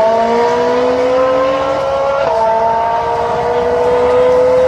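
Supercar engine and exhaust under hard acceleration. The pitch climbs steadily, drops with an upshift a little over two seconds in, then climbs again in the next gear.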